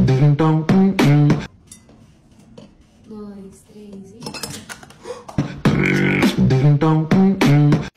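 Beatbox-style vocal music track: a loud run of rhythmic, pitched mouth sounds lasting about a second and a half. The same phrase comes again about five and a half seconds in, with quieter vocal sounds between.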